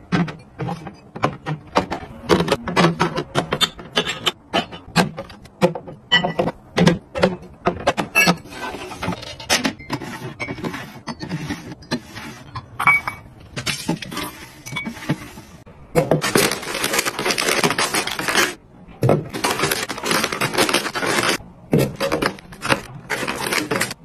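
Ceramic mugs and cups handled into plastic cabinet organizers and a mug rack: a run of separate clinks, taps and knocks of ceramic on plastic, with two longer, noisier stretches of handling in the second half.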